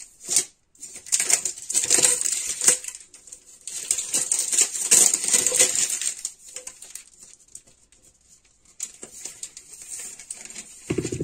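Baking parchment paper rustling and crinkling as it is handled, loudest for the first half, then fainter with scattered light clicks.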